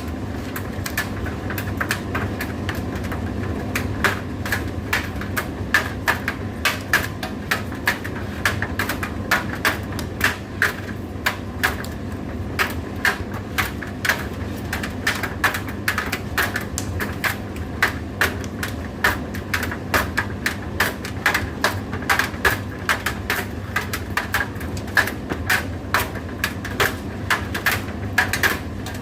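Indesit IDC8T3 condenser tumble dryer running: a steady low motor hum with frequent, irregular sharp clicks and taps, several a second.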